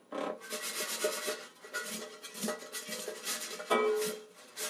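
Partly cooked tater tots rattling and tumbling in a Ninja Foodi air fryer basket as it is shaken: a dense, uneven clatter of many small hits that eases off near the end.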